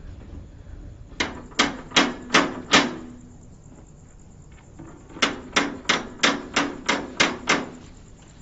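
Knocking on a wooden door: five quick knocks, a pause of about two seconds, then eight more at about three a second, each with a short hollow ring.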